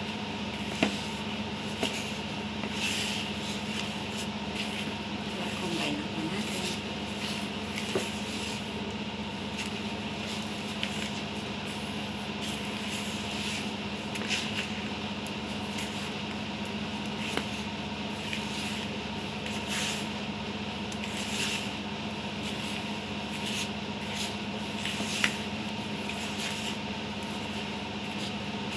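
Silicone spatula stirring and scraping dry flour mixed with sugar, baking powder and salt in a plastic bowl, a soft continuous rustle broken by a few sharp clicks. A steady hum runs underneath.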